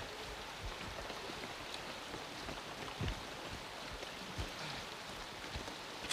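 Steady rushing of a shallow stream flowing over a stony ford.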